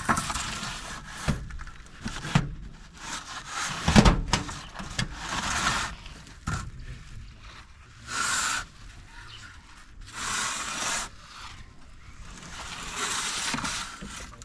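Plastering tools scraping across a plastered wall in a series of separate strokes, each about half a second to a second and a half long, with a few sharp knocks, the loudest about four seconds in.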